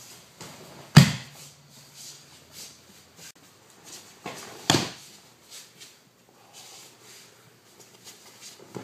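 Two heavy thumps of a body slapping down onto the dojo mat in aikido breakfalls, about four seconds apart. Softer scuffs and rustling of gi and hakama come in between.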